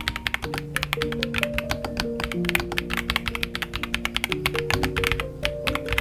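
Fast typing on a Royal Kludge RK75 Alice-layout mechanical keyboard with pre-lubed switches in a gasket mount: a quick, even stream of keystroke clicks, many a second. Background music with held notes plays under it.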